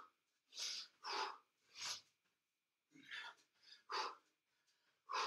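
A man's short, sharp breaths pushed out in quick succession while doing star jumps, with a brief pause midway.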